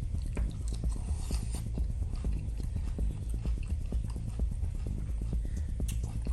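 Close-miked chewing of a big meat-and-cheese grinder sandwich: a quick, fairly regular run of wet mouth clicks and smacks over a low steady hum.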